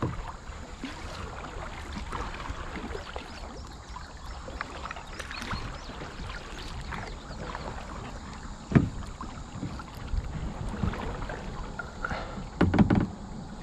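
Kayak paddling: paddle blades dipping and water splashing and trickling around the boat as a steady wash with small clicks. A single sharp knock comes about nine seconds in, and a few louder knocks come near the end.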